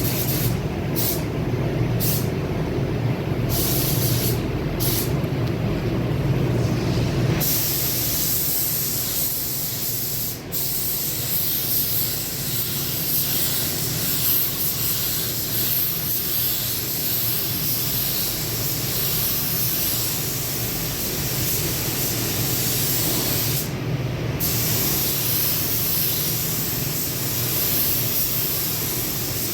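Compressed-air spray gun hissing as clear coat is sprayed onto a car fender. It starts in short trigger bursts, then runs in long continuous passes with two brief breaks, over a steady low hum.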